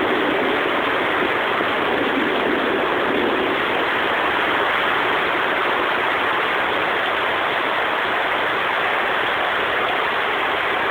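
Heavy rain pouring down in a steady, dense hiss. A deeper rumble sits under it and fades over the first few seconds.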